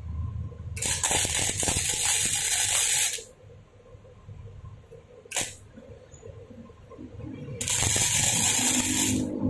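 Daiden MIGI 130 wire-feed welder's arc sizzling on steel tube in three bursts: a weld run of about two seconds, a brief tack, then another run of about a second and a half near the end.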